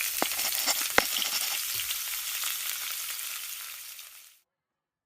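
A steady sizzling hiss, with two sharp clicks in the first second, that fades away about four seconds in.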